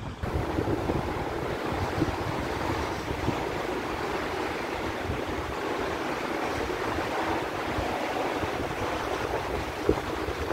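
Wind buffeting the microphone: a steady rushing noise with irregular low rumbles.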